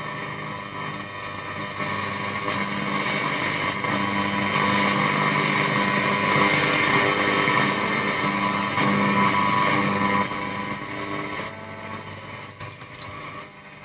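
A 1950s Pilot T85M four-valve radio's loudspeaker playing a medium-wave station while the dial is turned. The broadcast swells up over the first few seconds, holds, then fades away about ten seconds in as the tuning moves off the station.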